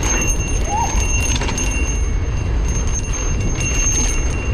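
Mountain bike rolling fast down a dry dirt trail strewn with leaves: wind buffeting the camera microphone with a steady low rumble, tyre roar on the dirt and light rattling from the bike, under a thin steady high whine.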